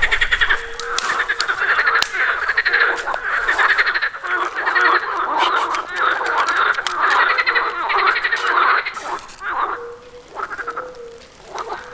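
A chorus of frogs croaking: many rapid pulsing calls overlap, thinning out after about nine seconds.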